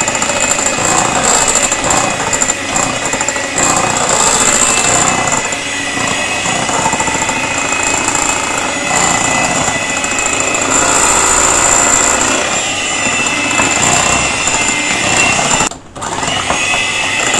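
Electric hand mixer running steadily, its beaters whirring through creamed butter and sugar in a glass bowl as eggs are beaten in one at a time. The sound cuts out for a moment near the end.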